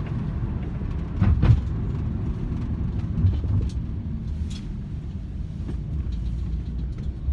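Steady low rumble of a car driving, heard from inside the cabin, with a brief thump about a second and a half in.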